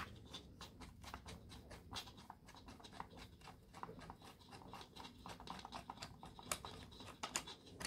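Faint, irregular clicks and light scratching of hands handling a small metal piece against a bow saw's plastic handle.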